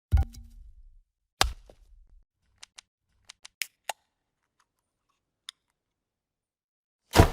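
A run of short transition sound effects with silent gaps between them: a sharp hit at the start and another about a second and a half in, then a quick scatter of small ticks, and a loud hit with a short rushing tail near the end.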